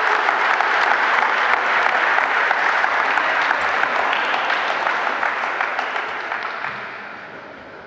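Crowd applauding, a steady patter of many hands clapping that fades away over the last couple of seconds.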